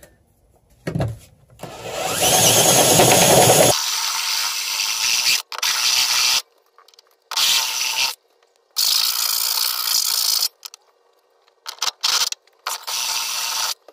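Cordless drill with a step bit cutting through an aluminum truck bed to enlarge a hole: one long run of about three to four seconds, loudest over its first two seconds, then several shorter bursts with pauses between them as the trigger is pulsed.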